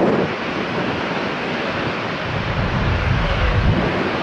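Boeing 737's twin jet engines at takeoff thrust as the airliner rolls and lifts off: a steady, loud rushing noise with a deep rumble swelling about three seconds in.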